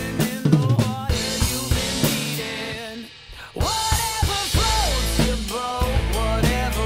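Acoustic drum kit (Tama Superstar Custom with Sabian and TRX cymbals) played along with a recorded pop-rock backing track. It opens with a quick fill of drum and cymbal hits. The music drops out briefly about three seconds in, then the full song comes back in over the drums.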